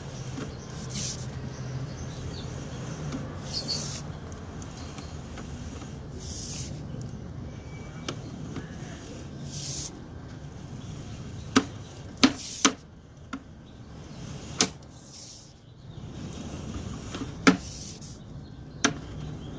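Sewer inspection camera push cable being fed by hand into the line, with handling and rubbing noise, a low hum that fades after the first few seconds, and several sharp clicks and knocks in the second half.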